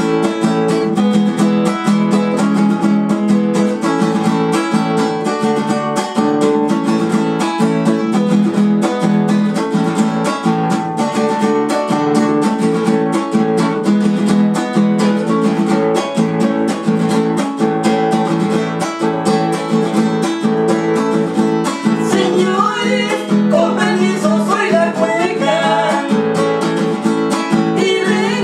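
Nylon-string classical guitar strummed steadily, playing the introduction of a Chilean cueca. Near the end a man and a woman start singing together over the guitar.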